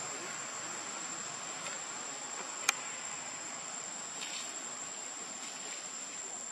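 Steady high-pitched drone of insects, with one sharp click about two and a half seconds in.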